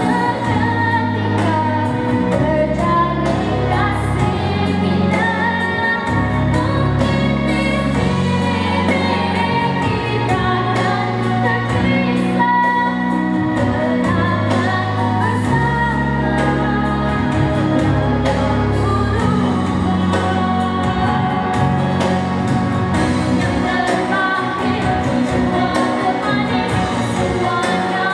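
A girl sings a pop song through a handheld microphone over a pop accompaniment with sustained bass notes and a light, ticking beat.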